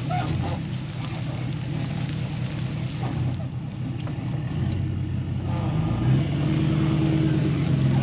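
Truck engine running under load while its hydraulic bale bed spreads a straw bedding bale. The engine gets louder and slightly higher about five and a half seconds in.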